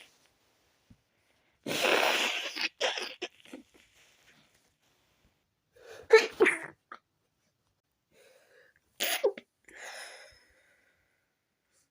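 A woman's stifled sneezes from a tickly nose: three bouts of short bursts separated by silence, the sharpest about six seconds in.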